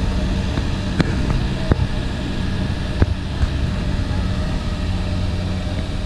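Rice combine harvester's diesel engine running steadily as the machine drives off along a dirt track, with a few sharp metallic knocks from the machine along the way.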